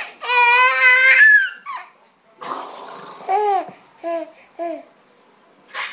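Baby squealing, babbling and laughing: one long, high squeal rising in pitch near the start, then a breathy laugh and three short squeaks.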